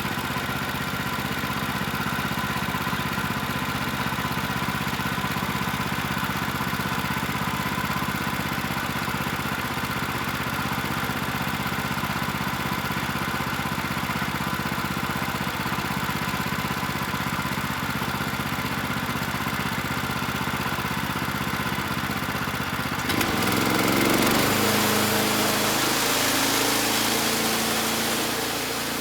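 Portable bandsaw mill's gas engine running steadily. About 23 seconds in, a loud hiss joins and the engine note shifts as the band blade goes into a board.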